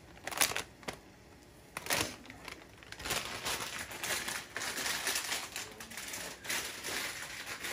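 A pot of instant noodles and greens at a hard boil, the foaming water bubbling and crackling in fast pops, denser from about three seconds in. Two sharp clicks come before that, about half a second and two seconds in.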